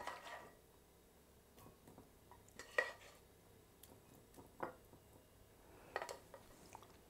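A spoon scraping and clinking against a saucepan as pasta is spooned out into bowls: a few faint, scattered knocks, the loudest about three seconds in.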